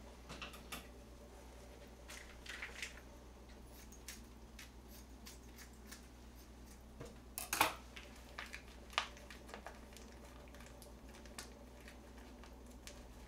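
A plastic sauce sachet crinkling as it is handled and snipped open with scissors: faint scattered crackles and clicks, the loudest a little past halfway. Near the end the sauce is squeezed out of the packet.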